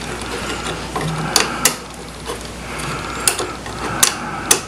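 Small screwdriver scraping and clicking against a pulse-motor circuit board as a chip is pried out of its socket, with several sharp clicks over a faint low hum.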